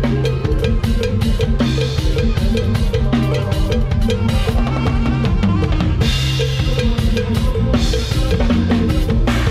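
A drum kit played in a fast, dense lam sing groove, with bass drum, snare and rimshot hits, over the band's music with a steady bass line.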